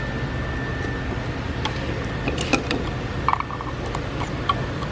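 Small clicks and taps of a Tesla high-voltage cable connector and its locking clip being worked by hand in the motor's plastic-lined housing, a handful scattered through, the loudest about two and a half and three seconds in, over a steady low hum.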